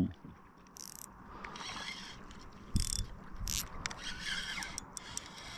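Fishing reel ratcheting in several short bursts, with a squid on the line. There is a low knock about three seconds in.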